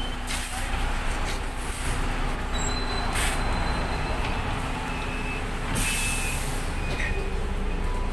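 Volvo B8R bus's diesel engine idling steadily, with two short air hisses from the bus's pneumatic system, about three and six seconds in.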